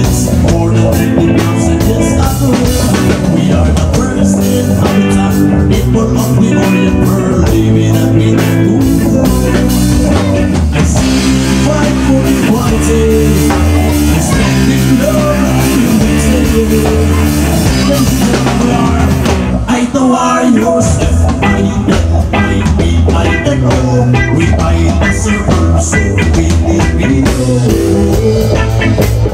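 Live rock band playing loudly: electric guitars and a drum kit with a singer on a microphone.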